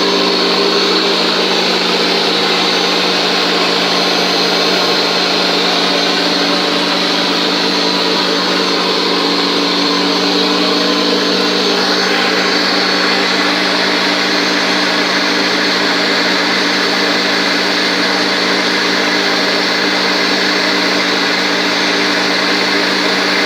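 Electric jigsaw mounted upside down in a homemade scroll-saw bench, running steadily with a continuous motor hum and blade rattle; the sound shifts slightly about twelve seconds in.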